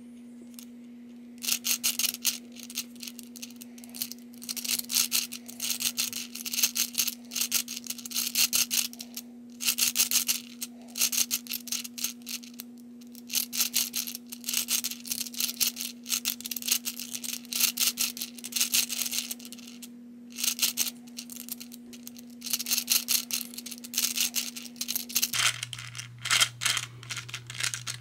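Balls of a Hungarian Rings puzzle clicking and rattling as its rings are rotated, in bursts of rapid clicks with short pauses between them. A steady low hum runs underneath and drops to a lower pitch near the end.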